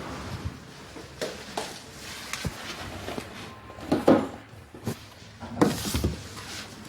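Irregular knocks and clatters of things being handled in a small room, with two louder, noisier bursts about four and about five and a half seconds in.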